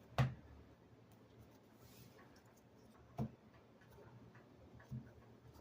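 Three short taps, the first the loudest, a second about three seconds later and a softer third near the end: card decks being tapped or set down on a table while being handled.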